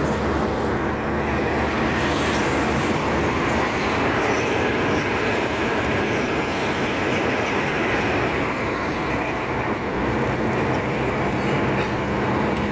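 Steady road and engine noise of a car driving along, heard from inside the car.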